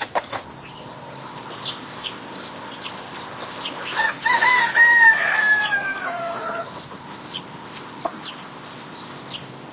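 A rooster crows once, about four seconds in, for about two and a half seconds, ending on a long falling note. Short high chirps sound before and after it.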